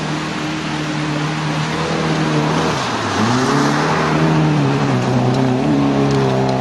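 Rally car engine running hard, its pitch dropping briefly about three seconds in and then climbing again, over a steady rushing noise.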